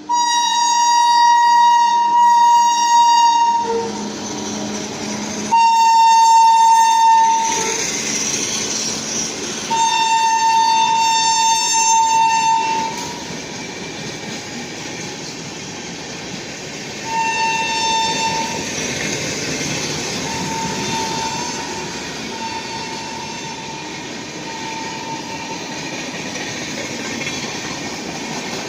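Air horn of a WAP-7 electric locomotive sounding four long blasts on one steady pitch, then three shorter, fainter toots, as the train passes. The wheels rumble and clack over the track throughout.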